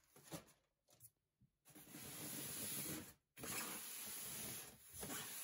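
Polystyrene foam packing blocks rubbing and scraping against each other as they are handled and pulled apart: a few light handling noises, then three long scraping rubs of about a second and a half each.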